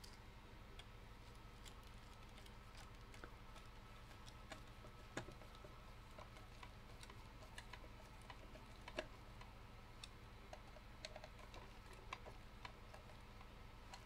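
Near silence broken by irregular faint clicks and light taps from the mini fridge's plastic housing and wiring being handled and fitted back together. The clearest clicks come about five and nine seconds in.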